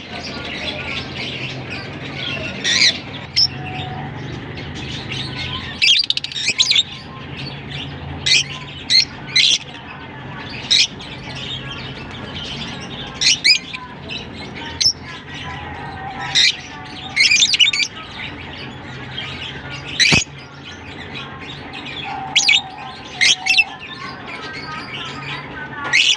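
A flock of caged lovebirds (Fischer's and masked) giving short, sharp, high chirps and squawks in irregular clusters, over a steady low hum. There is one sharp click about twenty seconds in.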